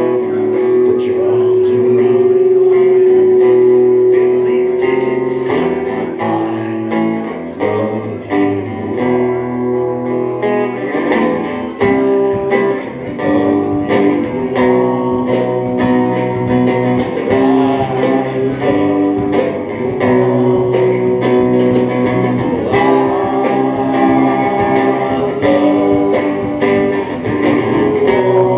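Live band playing a song: guitar over bass, with drum-kit hits coming in steadily from about six seconds in.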